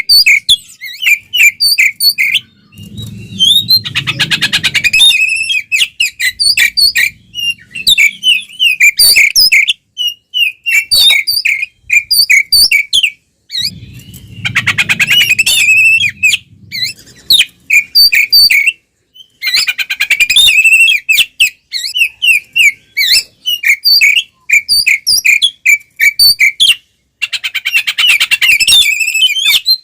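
Oriental magpie-robin (kacer) singing loud and nonstop: a fast run of sharp whistled notes and chirps, broken three times by a harsher, buzzing rattle lasting about two seconds.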